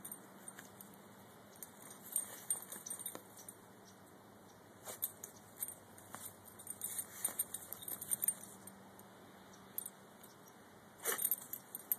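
Dog digging and rooting with its nose and paws in loose dirt at a mole hole, making quick scratching and rustling in a few spells, with quiet between them.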